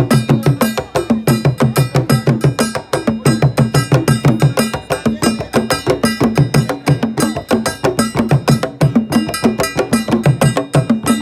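Traditional Akan drum ensemble: tall peg-tuned barrel drums struck with curved wooden sticks, playing a fast, steady interlocking rhythm of many strokes a second with deep pitched drum tones.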